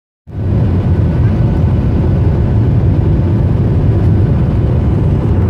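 Steady engine and airflow noise of a Boeing 737-800 airliner heard inside the cabin on the descent to land, heavy and low, with a few faint steady tones above the rush.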